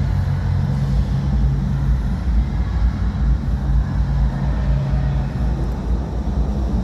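Muffled low bass rumble from distant amplified party music, with the low notes carrying and little of the higher sound.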